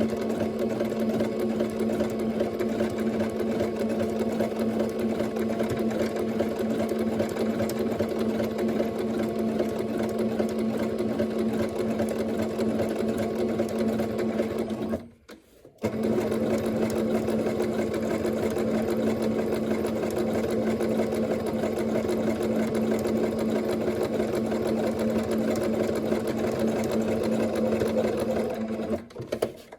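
Singer Starlet 6680 sewing machine running at a steady speed, sewing a zigzag stitch to join two fabrics edge to edge. It stops for about a second halfway through, runs again, and stops just before the end.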